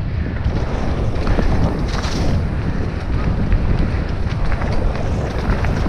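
Wind buffeting the microphone of a bike-mounted or helmet-mounted action camera as a mountain bike rolls fast over a dirt singletrack, with tyre noise and small rattles and clicks from the bike. A brief hiss comes about two seconds in.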